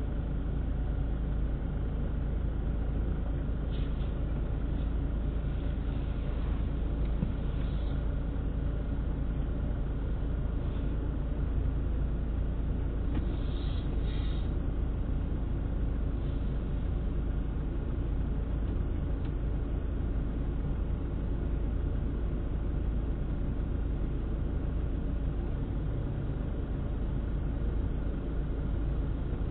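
Car driving, heard from inside the cabin: a steady low rumble of engine and road noise, with a few brief faint hisses near the middle.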